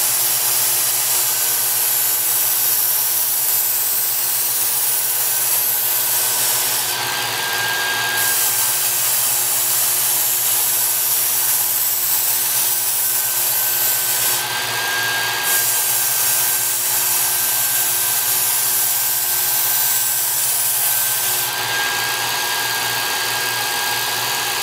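Work Sharp Ken Onion Edition electric belt sharpener running steadily while a steel knife blade is ground against its abrasive belt, working one side of the edge up to a burr. The motor's hum and faint whine hold steady, while the hiss of steel on the belt rises and falls every few seconds as the blade is moved.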